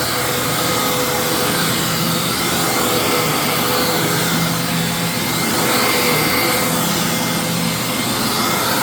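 A 1998 Hoover WindTunnel upright vacuum cleaner running steadily, with its motor, which the owner believes is a Maytag, giving a noisy whine. There is some bearing noise in it, which the owner puts down to the motor's age and heavy use.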